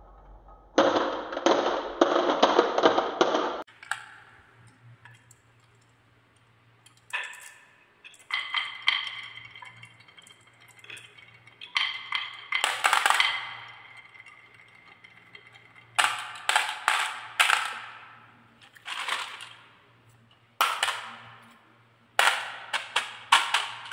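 Glass marbles rolling and clattering on a wooden marble-run track and dropping into a toy dump truck's plastic bed, clinking against each other. A dense run of rattling starts about a second in and lasts a few seconds, then come scattered clusters of sharp clinks; near the end, marbles clink in the truck bed under a hand.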